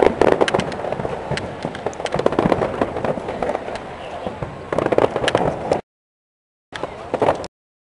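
Fireworks display going off, with rapid sharp bangs and crackling in close succession. The sound cuts off suddenly about six seconds in, returns with a short burst of bangs around seven seconds, then cuts off again.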